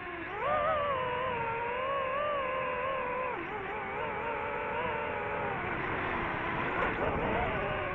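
DJI FPV drone's motors and propellers whining, the pitch rising and falling with the throttle: a sharp rise about half a second in and a drop at about three and a half seconds.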